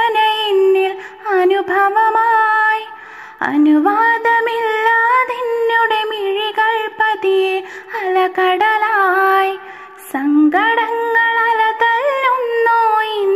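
A high voice singing a slow Malayalam song, long held notes with ornamented turns, pausing briefly for breath about three and ten seconds in.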